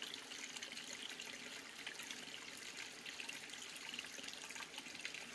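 A mountain stream trickling faintly over rocks: a steady, soft wash of running water.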